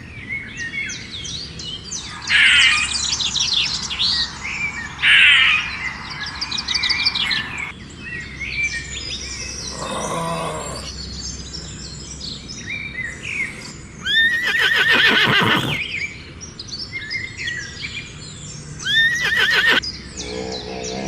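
Many birds chirping and calling, with louder animal calls breaking in several times, the longest lasting about two seconds.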